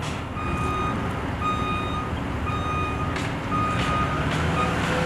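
A construction vehicle's back-up alarm beeping steadily, about one beep a second, five in all, over the low rumble of its engine.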